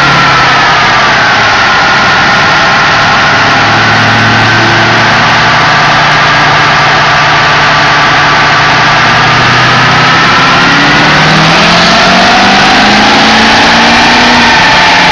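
A 2004.5 Chevy Silverado's LLY Duramax 6.6 L turbodiesel V8 running loud on a chassis dyno, with a whine over the engine note. Its pitch sags early on, holds, then climbs steadily over the last few seconds as the engine speed rises.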